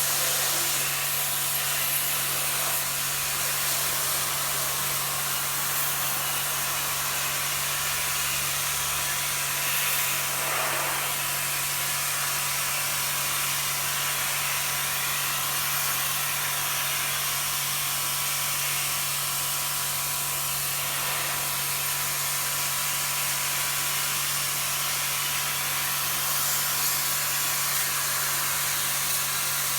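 High-pressure washer running steadily while washing an air conditioner: an unbroken hiss of water spray over a steady motor hum.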